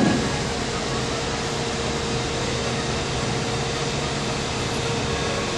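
ACER Supra 1640PD saddle-type precision surface grinder running: a steady machine hum and noise with a constant mid-pitched whine. A brief thump comes at the very start.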